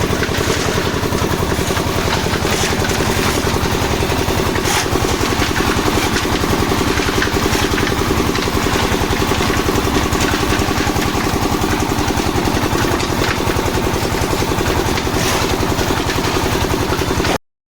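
An engine running steadily at a constant speed with a fast, even chugging. It cuts off suddenly near the end.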